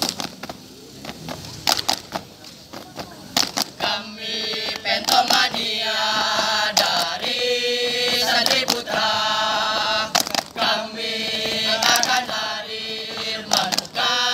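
Group of boy scouts chanting a yell in unison, punctuated by sharp hand claps. The first four seconds hold only scattered claps before the unison chant starts.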